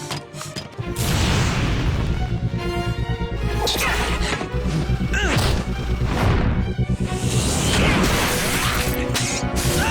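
Action music under a rapid run of sound effects: crashes, hard hits and whooshes.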